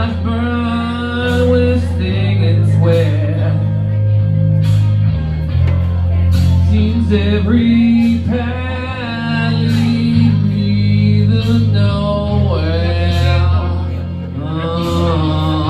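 A man singing karaoke into a microphone over a backing track, his voice holding long wavering notes above a bass line that changes every second or two.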